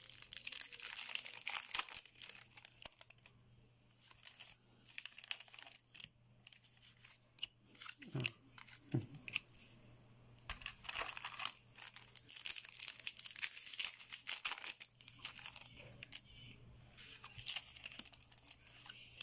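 A foil booster-pack wrapper crinkling and tearing while trading cards are handled, in several rustling bursts: at the start, through a stretch in the middle and again near the end.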